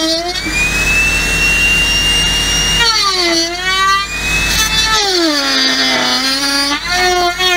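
Compact trim router running at high speed, a steady whine whose pitch drops several times as the bit cuts into the wood and then climbs back. The longest dip lasts about two seconds near the end.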